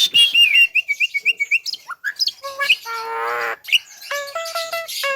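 Javan myna calling loudly: a quick run of sharp chirping notes, then a harsh buzzy call, and near the end a string of evenly repeated whistled notes, about four a second.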